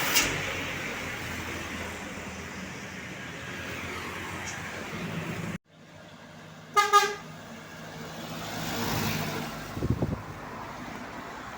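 Road traffic passing close by, then a brief horn toot with two quick peaks about seven seconds in, over the traffic noise.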